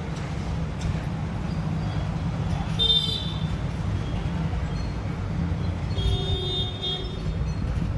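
Steady low rumble of background traffic, with two short horn toots: one about three seconds in and a longer one about six seconds in.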